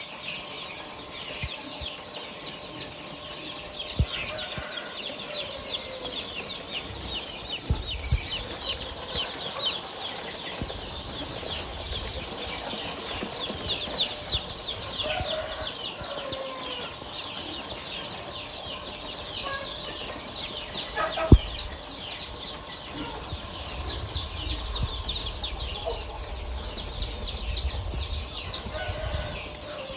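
Chickens clucking, over a constant stream of rapid high-pitched chirping. A single sharp knock about twenty seconds in is the loudest sound, and a low rumble comes in near the end.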